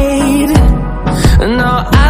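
Background pop music with a steady beat and held notes: an instrumental stretch between sung lines.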